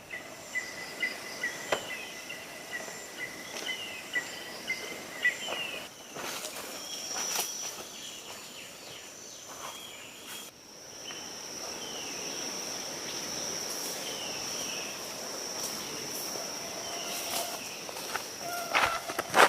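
Forest ambience of insects and birds. About ten seconds in, a steady high-pitched insect drone starts and holds. Before that, a quick series of high pips runs through the first few seconds, with short down-slurred bird chirps throughout and scattered light clicks.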